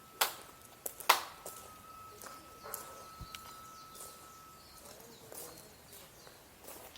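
Two sharp clicks or knocks about a second apart, then a few fainter knocks and handling noises, with a faint steady high tone that stops about five seconds in; no engine running.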